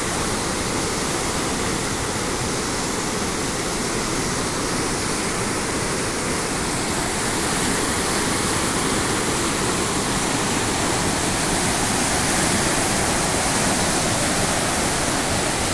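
Canal water pouring over a weir and churning in white water below, a steady loud rush that grows a little louder about halfway through.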